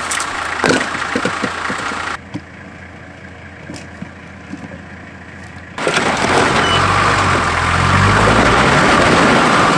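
A four-wheel drive's engine working under load as it crawls up a rocky step, with rocks crunching and knocking under the tyres; the engine revs rise about two-thirds of the way through.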